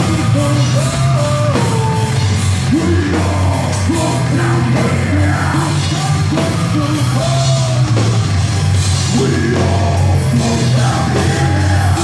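Live horror-punk rock band playing loudly: electric guitars, bass and drum kit, with a singer's voice carrying the melody over them.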